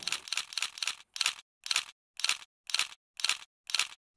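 Camera shutter firing: a rapid burst of shutter clicks for about the first second, then single clicks about twice a second.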